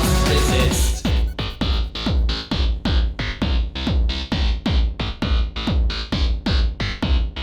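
Electronic music: a full, dense mix that thins out about a second in to a fast, steady kick-drum beat of about four hits a second with synth stabs.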